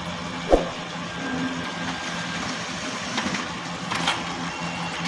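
Brother DCP-B7640DWB monochrome laser printer running while it prints a page, a steady mechanical hum. A sharp clunk comes about half a second in, and a few lighter clicks come near four seconds.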